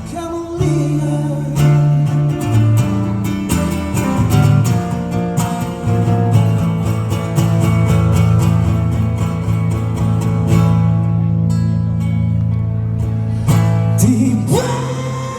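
Live band playing an instrumental passage: strummed acoustic guitar over bass and drums. A voice comes in with a sliding note near the end.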